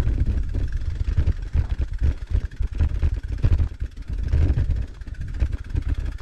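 Wind buffeting the camera's microphone: a low rumble that rises and falls in gusts.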